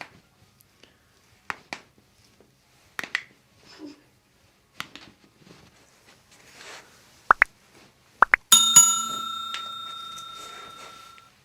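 A few light clicks, then a bell rings once about two-thirds of the way in and slowly fades over about three seconds.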